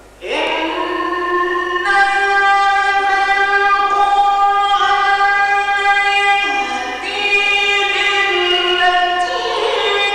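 A male reciter chanting the Quran in the drawn-out melodic mujawwad style. The voice comes in just after the start and holds long sustained notes, moving to new pitches about six and a half seconds in and again near the end.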